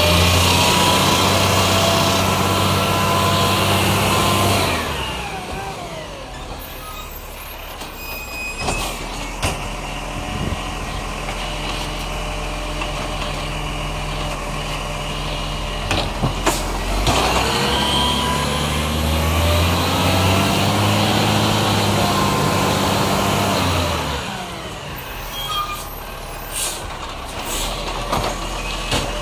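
Iveco Acco side-loader garbage truck's diesel engine revved up to drive the bin-lifting arm's hydraulics, held high for about four seconds at the start and again for about six seconds later on, dropping back to idle in between. Sharp metallic clunks of the arm and bin come about eight seconds in and again around sixteen seconds.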